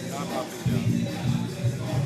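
Live rock band playing, with a bass riff of short repeated notes.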